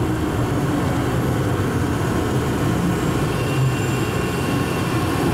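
Atlanta airport Plane Train, a rubber-tyred automated people mover, running steadily through its tunnel, heard from inside the car.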